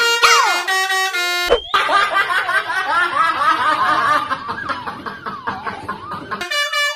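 A multi-tone 'telolet' bus horn plays a short tune of held notes with sliding pitches, broken off about a second and a half in by several seconds of high-pitched laughter and giggling. The horn tune returns near the end.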